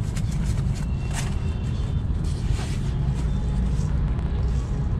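Steady low rumble of a taxi cab's engine and road noise, heard from inside the car's cabin.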